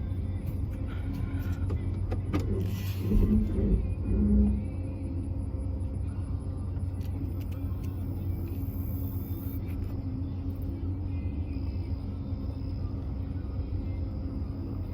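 A vehicle's engine running steadily at low speed while reversing, with a short stretch of louder rumbles and knocks about three to four seconds in.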